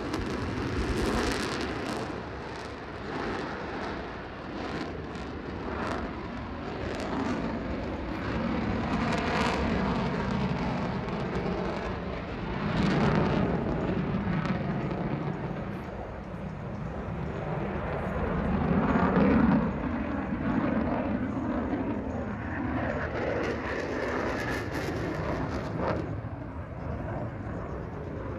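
Jet aircraft engine roaring during a low fly-by display, swelling loud and fading back several times as the jet passes and turns over the field.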